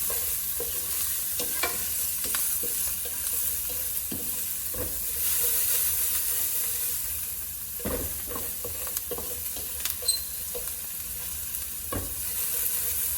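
Garlic and red pepper sizzling in hot oil as they are stir-fried in a pan, a steady hiss broken now and then by the scrape and tap of stirring against the pan.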